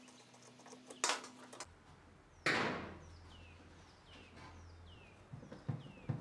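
Hands and a screwdriver working the hardware and door of an old wooden Hoosier cabinet. A sharp metallic clatter comes about a second in, then a louder scrape that falls in pitch. After that come short high falling squeaks about twice a second, and light knocks of the wooden door near the end.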